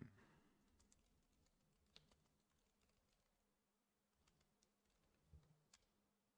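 Faint computer keyboard typing: a handful of scattered keystrokes.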